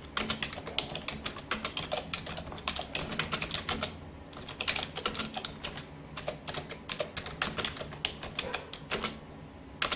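Typing: rapid, irregular keystroke clicks, several a second, over a low steady hum. It is the sound effect for on-screen text typed out letter by letter.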